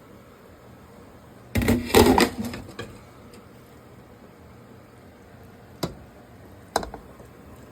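Clatter of cookware as sautéed vegetables are tipped and scraped from a pan into the soup pot, a loud burst lasting about a second, then two sharp knocks a second apart near the end.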